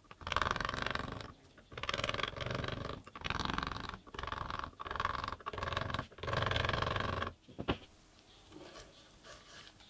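A flat steel chisel scraping and shaving into a wooden knife handle in about six scraping strokes of roughly a second each, followed near the end by a single short click.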